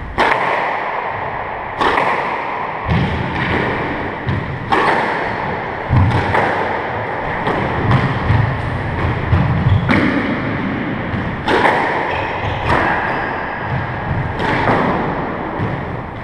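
A squash rally: the ball is struck by rackets and smacks off the court walls about once a second, each hit echoing in the court.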